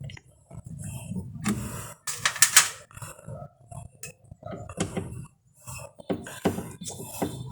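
Irregular clinks, knocks and scraping of hand tools against metal and plastic washing-machine parts during repair work, with a louder clatter a couple of seconds in.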